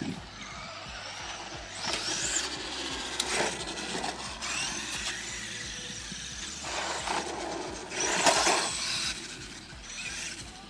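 Traxxas E-Revo Brushless Edition RC monster truck driving, its brushless electric motor whining and rising and falling in pitch as it speeds up and slows, with louder surges about two seconds in and again near eight seconds.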